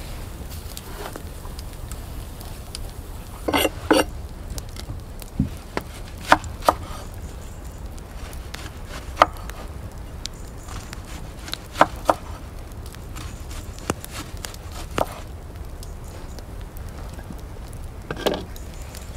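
Kitchen knife cutting bell peppers and an onion on a wooden cutting board: irregular single knocks of the blade on the board, one to three seconds apart, over a low steady rumble.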